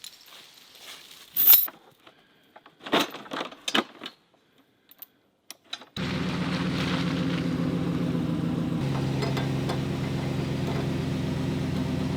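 A few sharp knocks and some clatter, then about halfway through an engine idling steadily cuts in abruptly.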